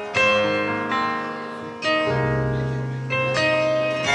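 Keyboard playing the slow intro to a worship song: three sustained chords struck about a second and a half apart, with a deep bass note coming in about two seconds in.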